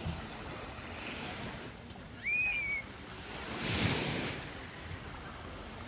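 Small waves lapping on a sandy shore, with wind on the microphone; a little wave washes in about four seconds in. About two seconds in, a short high-pitched cry rises and then holds, louder than the surf.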